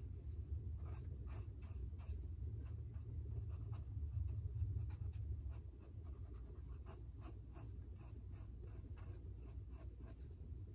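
Ink pen scratching across sketchbook paper in quick, short, irregular strokes, several a second, over a steady low rumble.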